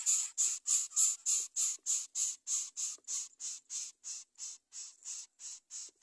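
Greater coucal nestlings begging at the nest: a rapid series of short rasping hisses, about three to four a second, growing fainter.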